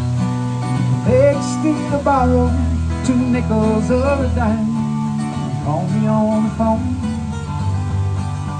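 Solo acoustic guitar strummed and picked in a steady country-folk style, with a singing voice carrying a wavering melody over it from about a second in.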